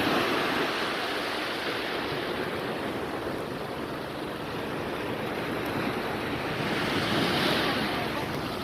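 Sea surf washing onto a beach, a steady rush of waves with wind buffeting the microphone, swelling a little near the end.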